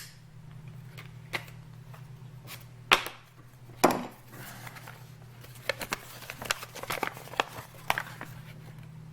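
Sharp clicks and knocks of objects being handled: two loud ones about three and four seconds in, then a quick run of light clicks and taps, over a steady low hum.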